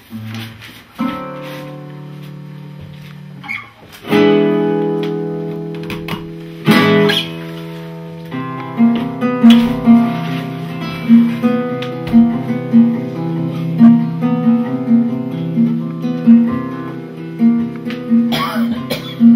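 Acoustic guitar: a few chords struck and left to ring, then from about eight seconds in a steady picked pattern of notes, roughly two a second.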